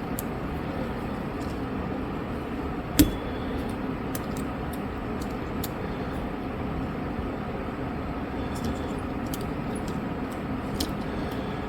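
Steady low hum of background machinery, with one sharp click about three seconds in and a few faint ticks from small repair tools working on a phone.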